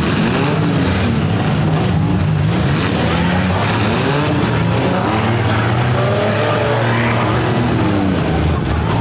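Several demolition derby cars' engines revving hard, their pitch rising and falling over and over, over a loud steady engine drone.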